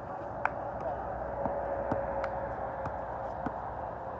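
Basketball bouncing on an outdoor hard court: about six sharp thuds at uneven intervals, the loudest about half a second in, over a steady hiss of wind and faint voices.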